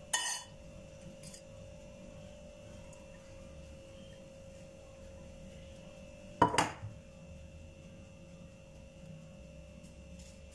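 Kitchenware knocking and clinking twice, once at the start and louder about six and a half seconds in, each with a short ring, over a faint steady hum.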